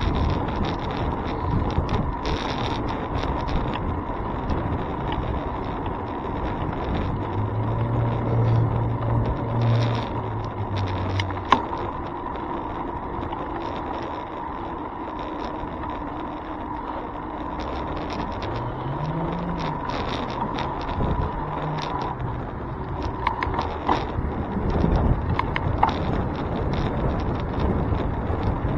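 Road and wind noise picked up by a handlebar-mounted camera on a moving bicycle, with frequent small rattles and knocks from the bars over the pavement. A nearby motor vehicle's engine hums steadily for a few seconds about a third of the way in, and another engine's pitch rises and falls about two-thirds of the way in.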